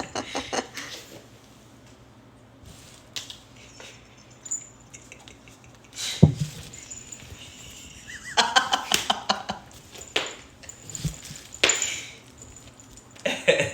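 Scattered knocks, thumps and rustles from Bengal cats scrambling and playing while high on catnip. A short burst of voice-like sound comes a little past the middle.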